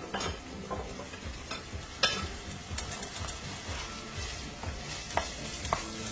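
Diced onions, garlic and hot pepper sizzling in oil in a stainless steel skillet while a wooden spoon stirs them, scraping and knocking against the pan a few times, loudest about two seconds in.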